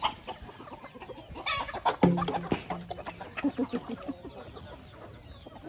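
Chickens clucking, loudest about two seconds in.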